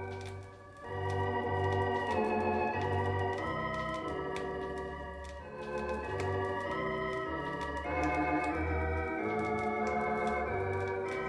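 Hammond organ music playing from a vinyl LP on a turntable: held chords that shift every second or so, with light crackle from the record surface. The music dips briefly less than a second in.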